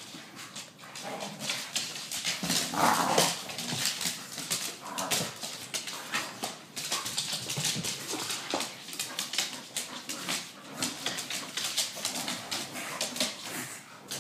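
Pit bulls playing rough: dog vocalising over scuffling and a rapid run of sharp clicks and knocks on a hardwood floor, loudest about three seconds in.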